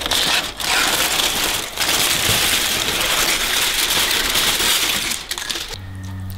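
Aluminium foil crinkling and rustling as it is peeled off a baking tray, with many small crackles. It stops shortly before the end, leaving a quieter low steady hum.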